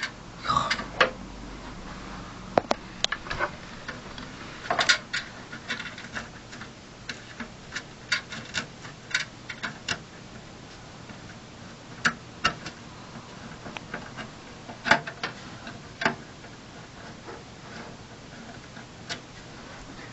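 Scattered sharp clicks and small metallic knocks: screws and a screwdriver working against a PC case's metal drive bay as a drive is screwed in.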